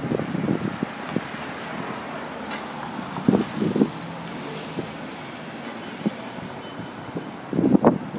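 City street traffic, buses and cars, as a steady hum, with louder uneven rumbles near the start, around three seconds in, and near the end.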